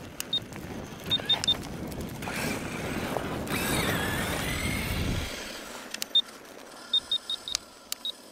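EM-Racing Tyrant 1/8 4WD brushless RC monster truck driving on snow and ice, its electric motor whining up and down in pitch for about five seconds before the sound drops away. After that, short high beeps in quick groups come from the transmitter as its trim is adjusted.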